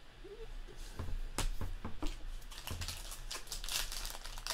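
Foil trading-card pack wrapper being crinkled and torn open by hand: a run of small irregular crackles and rustles that gets denser toward the end.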